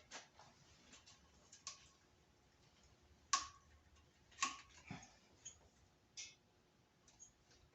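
Faint, scattered clicks and taps of tools and parts being handled in an engine bay, with two sharper clicks about three and a half and four and a half seconds in.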